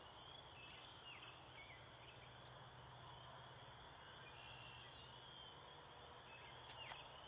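Near silence: faint outdoor ambience with a steady high drone and a few short, faint bird chirps scattered throughout.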